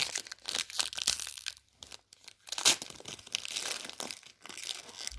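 Foil trading-card pack being torn open and crinkled by hand, with irregular crackles and rustling and one sharp snap about two and a half seconds in.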